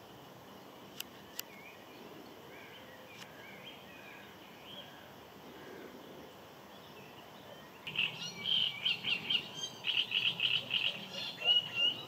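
Wild birds calling: faint scattered high chirps, then about two-thirds of the way in a loud burst of rapid, repeated high-pitched chirping notes. Two sharp clicks sound about a second in.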